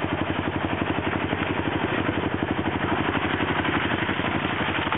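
ATV engine running steadily at low revs, an even rapid pulse that holds without revving up or down.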